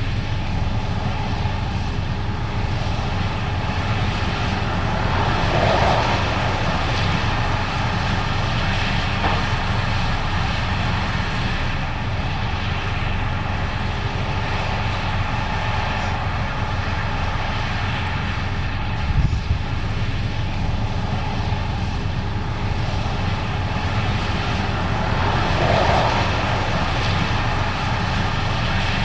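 Case IH 8250 Axial-Flow combine running steadily while harvesting corn: a constant engine drone with steady whining tones from the machinery. It swells briefly twice, and there is one short knock partway through.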